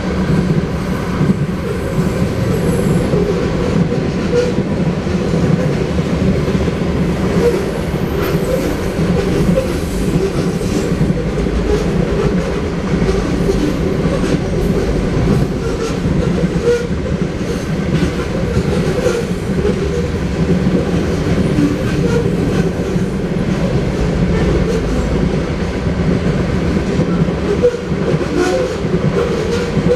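Freight train cars, boxcars and covered hoppers, rolling past at speed: a steady, loud rumble of steel wheels on the rails, with clickety-clack from the wheels.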